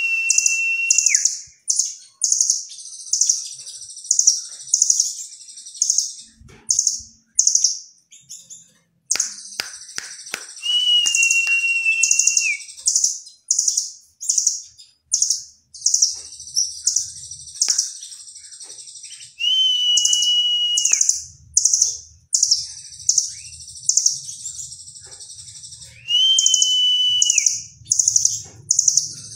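Caged blue nuthatch calling: bursts of very high, fast chattering trills, broken four times by a long level whistle about a second and a half long.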